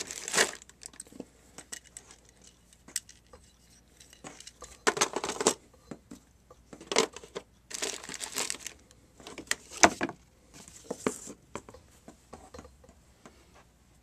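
Small plastic bag of F compression connectors crinkling as it is handled, in several short bursts, with sharp clicks and knocks of hand tools and a moulded plastic carrying case being handled and shut.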